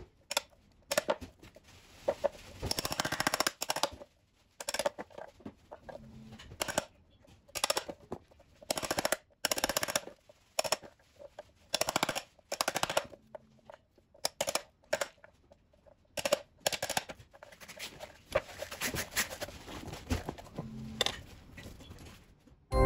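Claw hammer striking chunks of dried chaga mushroom on a wooden board, breaking them into fragments: irregular sharp knocks, with runs of quick blows about three seconds in and again near the end.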